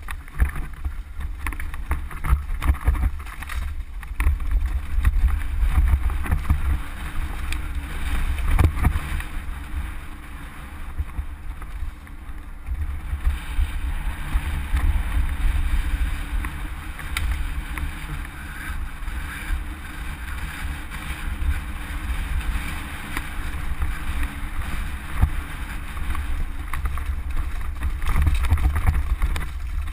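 Wind rumbling over an action camera's microphone on a fast mountain-bike descent, with the bike clattering and knocking over rocks and rough trail surface. The rumble swells and eases with speed, and a hard knock stands out about nine seconds in.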